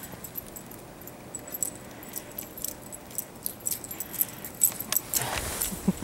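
Small metal jingling from a Siberian husky's collar and tie-out lead, irregular light clinks as the dog bounds through deep snow, with a louder rustle near the end as it passes close by.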